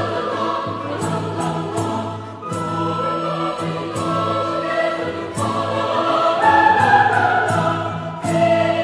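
Background music: a choir singing held chords.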